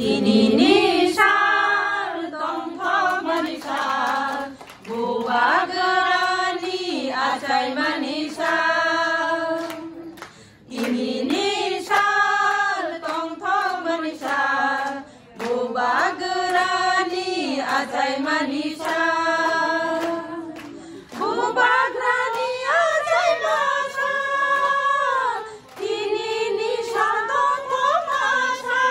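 A group of women singing together without accompaniment, in a series of sung phrases with held notes and short breaks between them.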